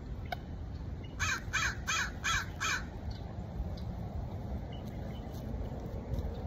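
A crow gives five quick caws in a row, starting about a second in, over a steady low rumble of wind on the microphone.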